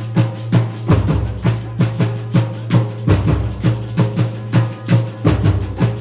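Live samba band percussion: drums keep a steady, driving beat with sharp strikes about twice a second over a ringing low drum tone.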